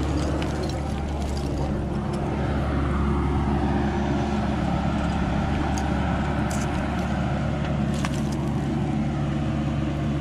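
Bobcat E26 mini excavator's diesel engine running steadily under load, with a pitch rising and falling as the boom and bucket move, and a few sharp clicks in the second half.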